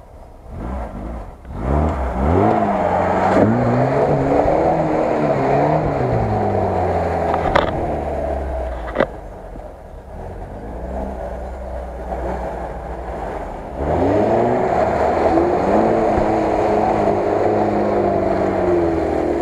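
Lada Niva 4x4 engine revving hard under load in mud, the revs rising and falling in two long spells with a lull between. Two sharp knocks midway.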